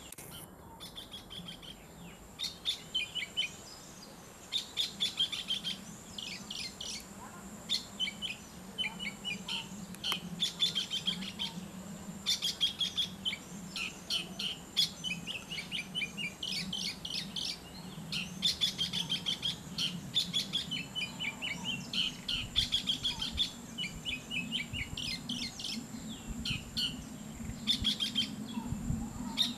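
Oriental magpie-robin singing: a long, continuous run of varied whistled phrases made of quick short notes, with brief pauses between phrases.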